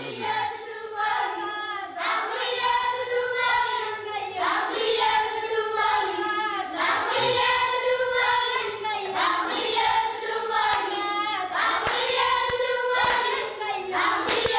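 A group of children singing together in high voices, with hand claps.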